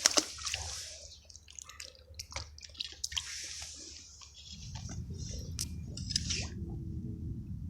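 Short wet splashing and squishing noises with scattered clicks, then a steady low rumble that sets in a little past halfway.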